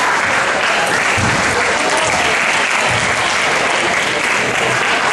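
Crowd of spectators applauding steadily, dense clapping with a few voices mixed in.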